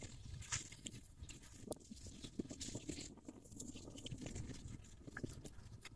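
Faint irregular rustling with scattered light clicks as an Alabai puppy squirms in the grass while being stroked.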